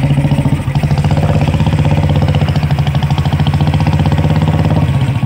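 Motorcycle engine running steadily on the move, a low, even note with fast firing pulses, heard from the seat.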